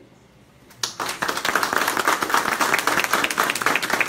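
A small group of people applauding, the clapping starting suddenly about a second in.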